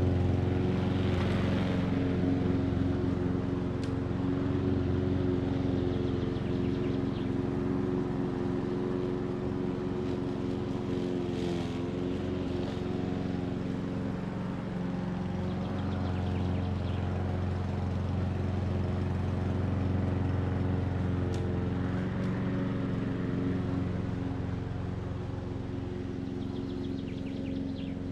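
Old Hecht walk-behind lawn mower running steadily with a constant engine hum.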